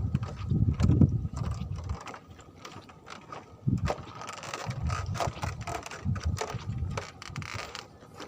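Fishing reel being wound, its gears clicking, with knocks of the gear being handled.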